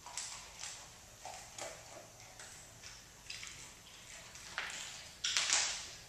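Dog eating dry kibble from a stainless steel bowl: irregular crunching and clinks of kibble against the metal, loudest near the end.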